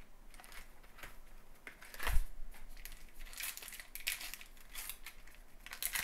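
A trading-card pack wrapper crinkling and rustling as it is torn open by hand, in quick crackly bursts, after a single sharp knock about two seconds in from handling the pack.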